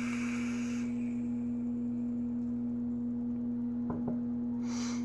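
A steady low electrical hum runs throughout. Over it comes the airy hiss of a draw on a box-mod vape with a dripping atomizer, stopping about a second in, and a short breathy exhale near the end.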